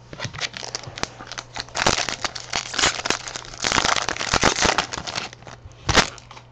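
A trading card pack's foil wrapper crinkling and tearing as it is ripped open, in a dense crackle that comes and goes for about five seconds. Near the end there is one sharp snap.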